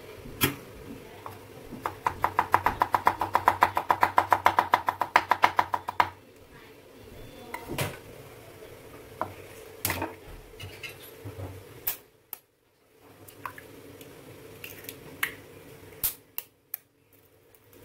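Knife rapidly chopping ginger on a wooden cutting board, about seven or eight strokes a second for some four seconds. Scattered clicks and knocks of bowls and utensils follow.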